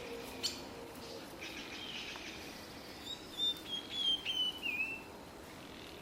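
A bird chirping: a quick run of high chirps ending in a falling warble, a few seconds in, preceded by a single click.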